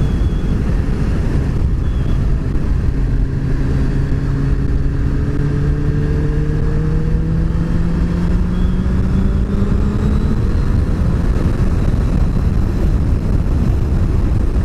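Sport motorcycle under way, heard from the rider: a steady rush of wind and road noise, with the engine's note climbing slowly for several seconds as the bike gains speed. The engine note then sinks back under the wind about ten seconds in.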